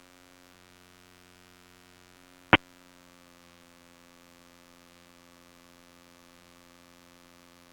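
Steady electrical hum with many evenly spaced tones on an aircraft intercom audio feed, with one sharp click about two and a half seconds in.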